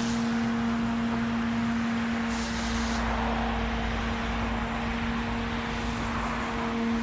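OMP Hobby M2 brushless RC helicopter in flight: its electric motor and rotor hold a steady drone at one pitch, with wind buffeting the microphone.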